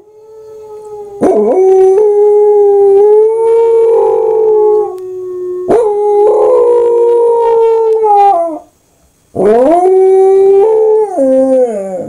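Corgi howling: three long howls of about three to four seconds each, held on a steady pitch and sliding down at the end.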